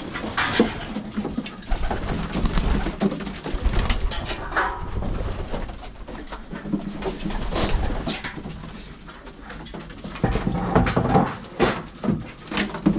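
Racing pigeons cooing in their loft, with scattered short knocks.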